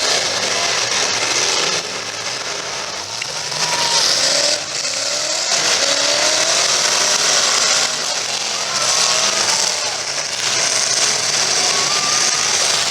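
Several demolition derby cars' engines revving hard and unevenly at once, their pitch rising and falling over a constant background of engine and tyre noise.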